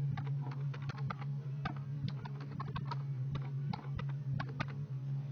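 Computer keyboard keys clicking in quick, irregular runs as a new password is typed in, over a steady low hum.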